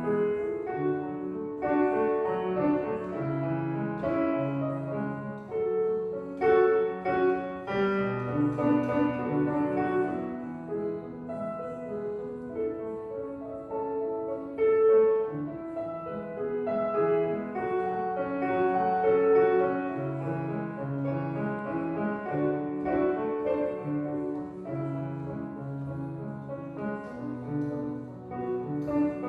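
Street piano being played solo: a slow tune, a melody line over low bass notes.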